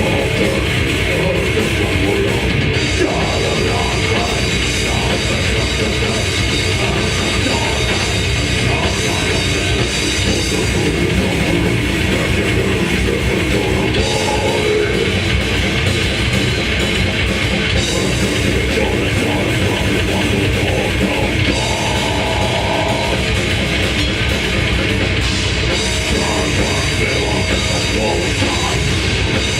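Death metal band playing live: distorted electric guitars and bass over a pounding drum kit, loud and continuous.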